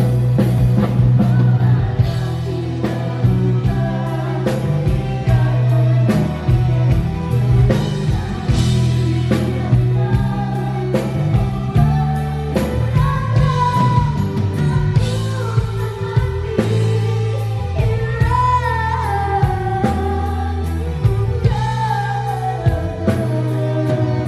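Amplified live rock band playing: drums, guitar and heavy bass under a sung vocal line that is clearest in the second half.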